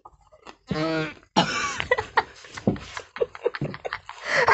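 A man coughing and spluttering with a mouthful of raw onion, in a run of rough bursts from about a second and a half in, with laughter near the end.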